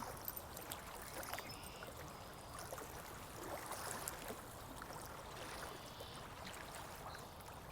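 Steady trickle of running water from a stream, with small splashes and a few faint, short bird calls now and then.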